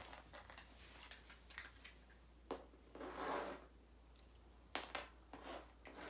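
Faint handling noises: scattered soft clicks and rustling, with a longer rustle about three seconds in and a couple of sharper clicks near the end.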